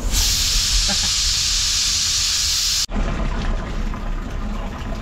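Pressure cooker on a gas stove venting steam through its weight valve in a loud, steady hiss: the cooker is at full pressure. The hiss cuts off suddenly about three seconds in, leaving a low steady rumble.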